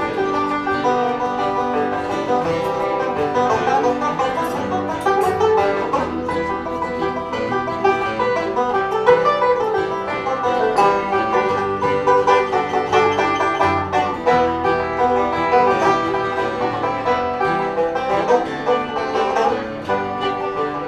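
Bluegrass band of five-string banjo, fiddle and acoustic guitar playing an instrumental break between sung verses, the banjo picking prominently over the bowed fiddle and strummed guitar.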